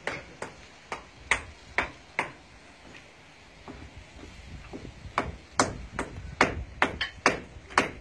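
Mason's hammer striking natural stone to trim it to shape, sharp ringing clinks. A handful of scattered strikes comes first, then after a short pause a quicker run of strikes.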